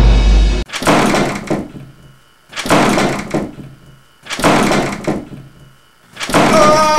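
Four loud thuds, about two seconds apart, each fading out over about a second; the last carries a brief pitched ring.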